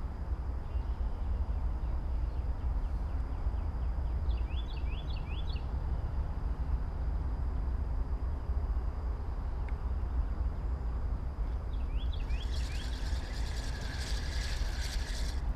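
A spinning reel being cranked, a fast whirring rattle that starts about three seconds before the end, over a steady low rumble. A bird gives two short runs of quick chirps, one in the middle and one just before the reeling.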